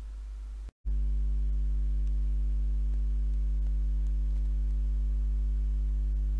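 A steady low electrical hum with a stack of even overtones. It cuts out briefly just under a second in, then returns louder and holds unchanged.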